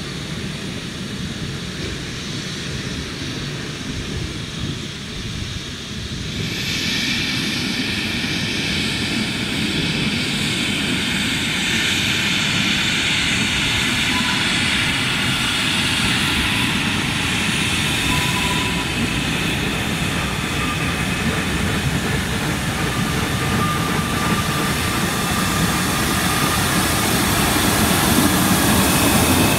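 Narrow-gauge steam locomotive at work: a steady low rumble, joined about six seconds in by a loud hiss that gets slightly louder toward the end.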